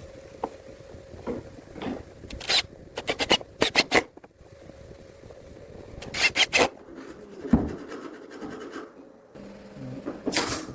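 Wood being worked with a hand tool: short scraping strokes in quick groups of three or four, broken by pauses, with a single knock about halfway through.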